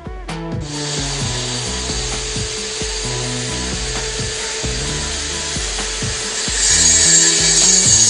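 Background music with a steady beat under a continuous rasping noise that starts about half a second in and gets louder and brighter near the end.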